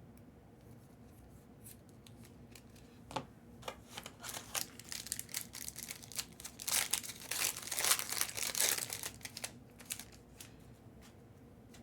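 Foil trading-card pack wrapper being torn open and crinkled: scattered crackles about three seconds in, building to a dense run of tearing and crinkling that dies away near the end.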